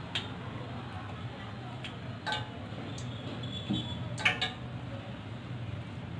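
A spoon clinking against a bowl a few times, sharp separate taps about two seconds apart, as the potato filling is scooped into samosa pastry. A faint steady low hum runs underneath.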